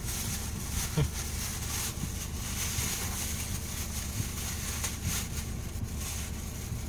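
Thin plastic carrier bag crinkling and rustling as fingers work at a tight knot, with a couple of sharper crackles, about a second in and near the five-second mark, over a steady low hum.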